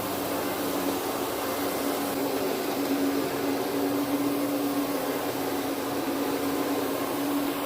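Carpet-cleaning machine running steadily: an even motor drone with a constant hum.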